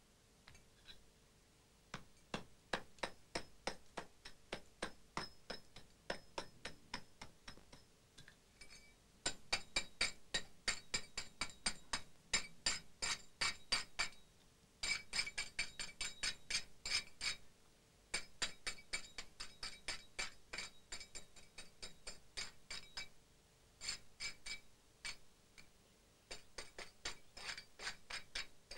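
Quick runs of sharp, ringing metallic taps, about five a second, broken by short pauses: a hammer striking a chisel to chip at stone.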